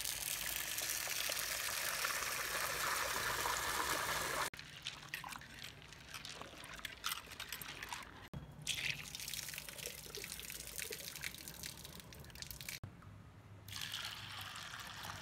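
Water poured in a steady stream into a bowl of dry chana dal (split chickpeas), then the lentils swished and rubbed by hand in the water with many small clicks and splashes, and water poured in again near the end.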